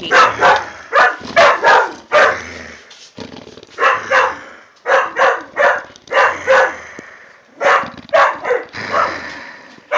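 Clumber spaniel barking over and over, loud short barks in quick runs of two or three with brief pauses between the runs.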